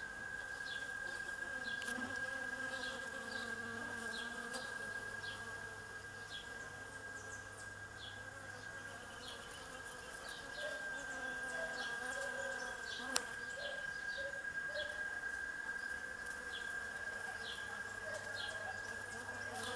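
Many bees buzzing as they work a flowering tree, a wavering hum over a steady high-pitched whine, with short high chirps repeating about twice a second. A single sharp click about thirteen seconds in.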